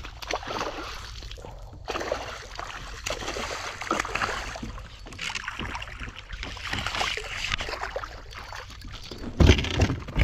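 A hooked largemouth bass splashing at the surface as it is reeled in to a plastic fishing kayak, with water sloshing and irregular handling and rubbing noises on the hull. A heavy thump about nine seconds in, near the end.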